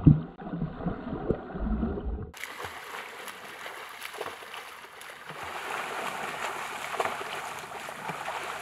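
Muffled underwater sound of people plunging into a swimming pool: a loud plunge at the start, then bubbling and gurgling. About two seconds in it switches to splashing at the surface as swimmers do front crawl.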